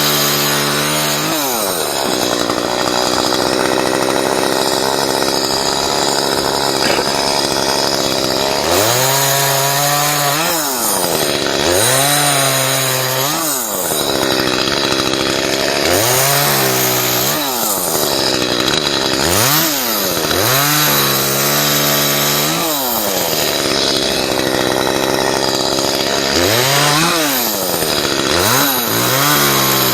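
Chainsaw running while limbs are cut: its engine is throttled up and let back down again and again, the pitch rising and falling about seven times over a steady drone.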